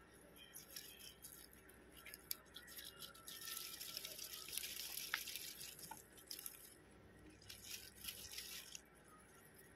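Faint scratchy rustling of pak choy leaves and soil being handled in a plastic planter, in two spells, the longer starting about three seconds in and a shorter one near the end, with a few light ticks.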